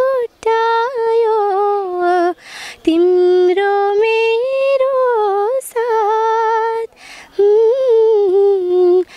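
A teenage girl singing a Nepali song unaccompanied, holding long notes with small ornamental turns, and pausing briefly twice between phrases.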